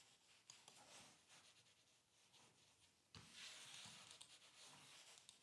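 Faint rubbing of gaming mouse feet sliding over cloth-type mousepads, with a few light clicks. About three seconds in, a slightly louder, hissier rub as a mouse glides over the Pulsar ES1 hybrid pad.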